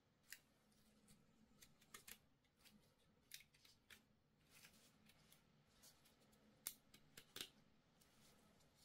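Faint, scattered clicks and ticks of a folding mini quadcopter's arms being swung open on their hinges by gloved hands. The sharpest snaps come about two-thirds of the way through.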